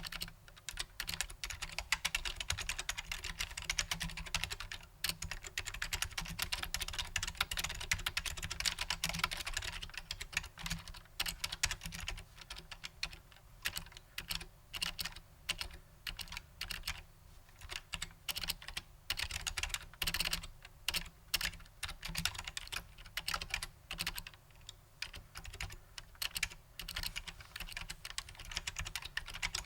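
Typing on a Matias Quiet Pro mechanical keyboard with quiet Alps-clone switches: fast, continuous keystrokes with short pauses now and then.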